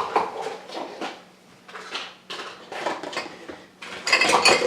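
Dishes and cutlery clinking and knocking as they are taken out of a dishwasher and set down, a few separate knocks and then a denser clatter near the end.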